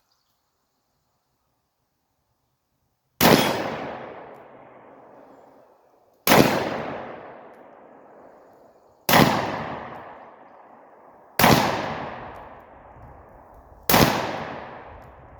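Five shots from a revolver chambered for .45 and .410 shotgun shells, fired about every two and a half to three seconds after a silent start of about three seconds. Each is a sharp crack followed by a long echoing decay.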